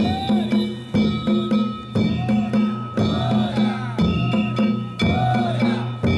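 Danjiri festival music: the float's taiko drums and metal gongs beating a steady rhythm, a strong stroke about once a second with lighter strokes between, the gongs ringing on between strokes.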